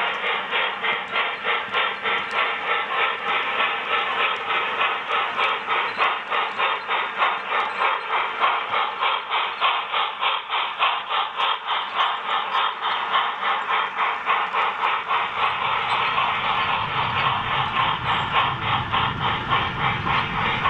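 Sound-equipped HO-scale MTH Erie Triplex model steam locomotive playing rapid, steady exhaust chuffing with hiss through its onboard speaker. Near the end a low rumble of the train's freight cars rolling past on the track joins in.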